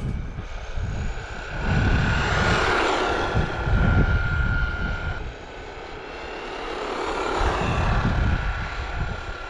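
Camera drone's propellers running with a steady high whine, over a rushing noise that swells twice.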